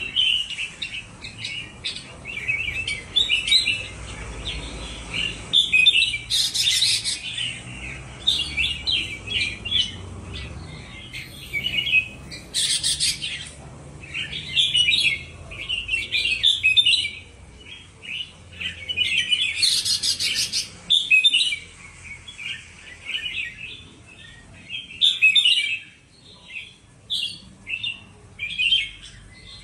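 Two red-whiskered bulbuls of the Indonesian strain singing against each other in a competition duel, trading quick chirping, warbling phrases without pause. A few harsher, rasping notes about a second long break in, about six, twelve, twenty and twenty-five seconds in.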